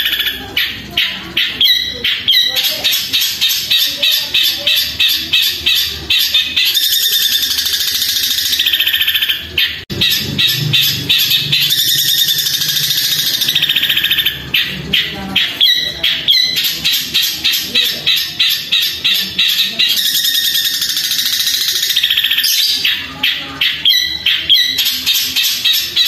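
Caged long-tailed shrike singing long, loud runs of rapid, high chattering chirps, in the sparrow-like 'gereja' style, with a short break about ten seconds in.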